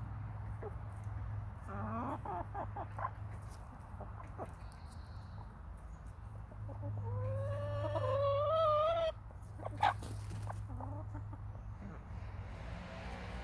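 Hens clucking: a quick run of short clucks about two seconds in, then a long drawn-out call rising in pitch from about seven seconds that cuts off suddenly, followed by a single sharp click. A steady low hum runs underneath.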